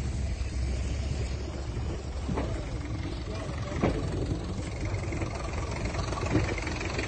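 Steady low rumble of wind and traffic on a phone microphone at the scene of a large building fire, with faint distant voices and a couple of short knocks.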